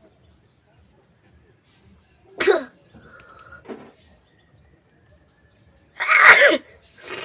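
A woman sneezing, set off by tickling her nose with grass. There is a sharp sneeze about two and a half seconds in and a longer, louder one about six seconds in.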